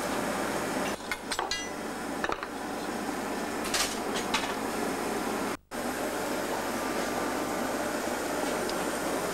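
Steady roar of a glassworks furnace, with light clinks of metal tools and the blowpipe against glass about a second in and again near four seconds. The sound cuts out for an instant just past halfway.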